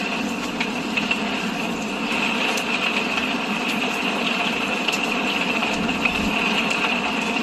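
Hail falling steadily: a dense, continuous rattle of many small ticks.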